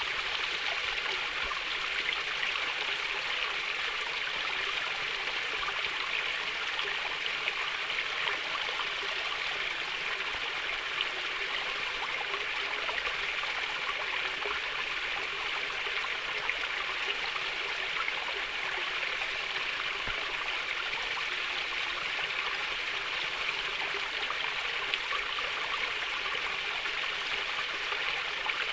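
A small stream of water flowing and burbling steadily and gently.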